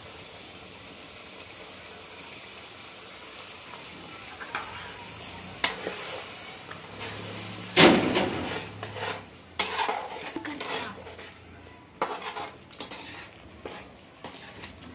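Steel slotted spoon scraping and knocking against an aluminium kadhai as thick masala gravy is stirred, over a low sizzle of the spices cooking. A loud metal clank rings out a little past halfway, with further scattered knocks after it.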